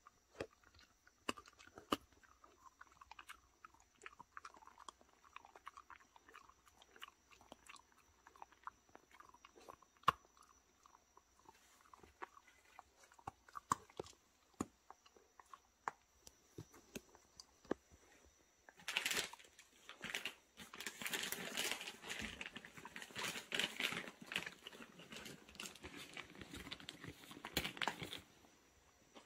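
A dog chewing beef liver jerky: many sharp crunches and clicks of biting, spread irregularly. About two-thirds of the way through, louder close rustling and scuffing takes over for several seconds, then stops.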